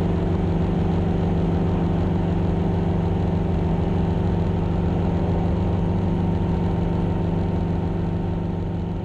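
1978 Enstrom 280C helicopter's piston engine and main rotor running at takeoff power, heard from inside the cockpit: a steady drone with a fast low beat from the rotor.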